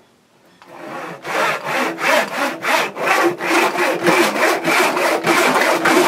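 Handsaw cutting through the end of a small branch stick clamped in a vise, in quick, even back-and-forth strokes that start about a second in, trimming its rough end square.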